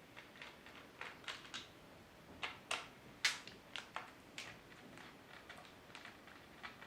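Scattered light clicks and taps, irregular and about a dozen in all: a motherboard's I/O shield and packaging being handled and taken out.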